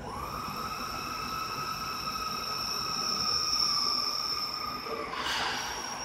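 FORSUN FS1630ATC automatic-tool-change CNC router running, its drives and spindle head giving a steady, high-pitched whine. The whine cuts off about five seconds in and a short burst of hiss follows.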